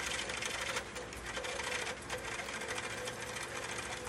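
Roughing gouge cutting a wooden workpiece turning on a foot-powered spring pole lathe: a steady, dense rasping chatter with brief lulls about one and two seconds in.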